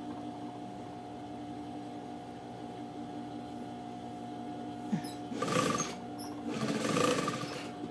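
Domestic sewing machine stitching in two short runs, about five and a half and seven seconds in, pushing through a thick section of rug made of knit-fabric strips. A steady low hum sounds between the runs.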